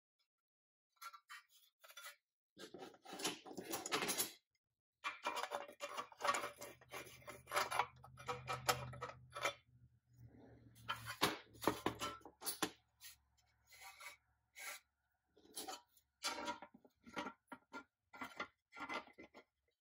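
Handling noise of a pressed-steel Nylint Ford Bronco toy body and a steel rivet tool: irregular scraping, rubbing and light metal clinks and knocks as the tool is fitted against the body, with a low hum through the middle.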